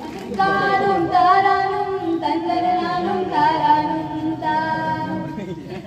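A young woman singing a slow melody with long held notes, in several phrases, through the stage microphone.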